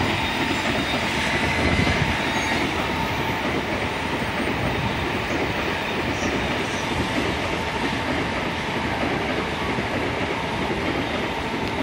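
Tokaido Shinkansen N700-series train running past, a steady rushing noise of wheels on rail and moving cars with a faint whine in it.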